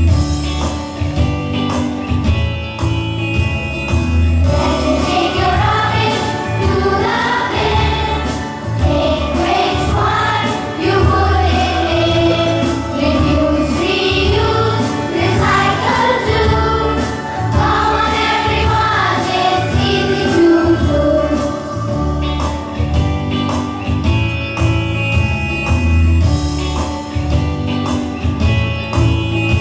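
A song about Earth Day sung by a group of children over a backing track with a steady beat; the singing starts about four seconds in and gives way to an instrumental passage near the end.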